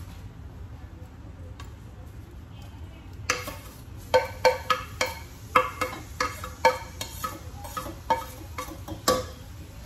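Diced tomatoes going into hot oil in a pot: a sizzle starts about three seconds in, over a run of sharp clinks, about two a second, as the tomato is knocked off the plate into the pot.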